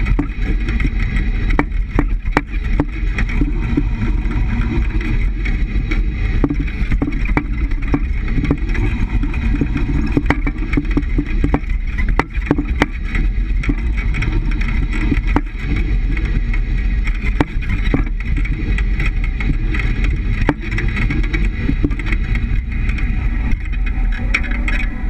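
Steady road and running noise of a 200-series Toyota HiAce van on the move, heard at the rear leaf spring, with irregular sharp knocks every second or few. The knocks are the rear bump stops touching, because the van is lowered three inches on lowering blocks.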